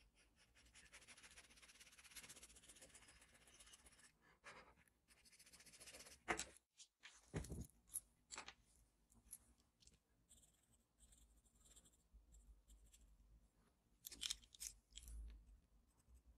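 Faint scratching of a charcoal pencil on drawing paper in quick short strokes, with a few sharper taps and rubs about halfway through and again near the end.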